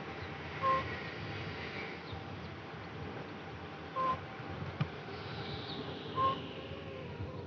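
A flying corvid (crow or raven) giving short, weird honking calls, three of them two to three seconds apart, over a steady background hiss. A single sharp click comes about two-thirds of the way through.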